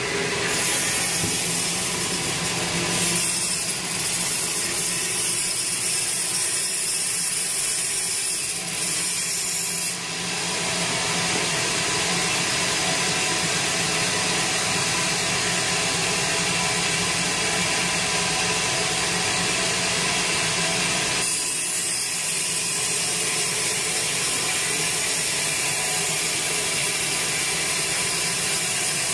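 Sawmill band saw running steadily through a large teak log, ripping it into boards. The sound shifts in character about ten seconds in and again about twenty seconds in.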